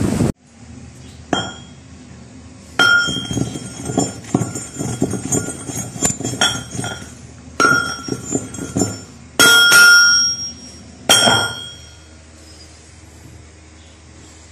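Steel pestle knocking and scraping in a steel mortar while grinding kushta qalai (calcined tin) to powder. There are about nine sharp, ringing metallic clinks with smaller scrapes and taps between them, and they stop about twelve seconds in.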